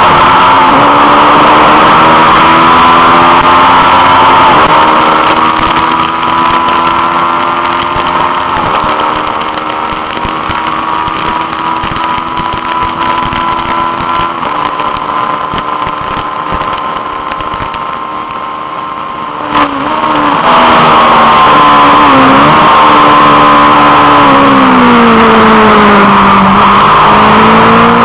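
Honda CB500 parallel-twin race engine heard from onboard at speed, with wind noise, its note changing in steps a few times down a straight. About two-thirds through there is a sharp click, then the engine is loud again, its revs dipping and rising twice through the corners and climbing near the end.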